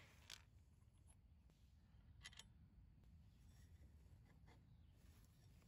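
Near silence, with a few faint, short clicks about a third of a second in and again around two seconds in.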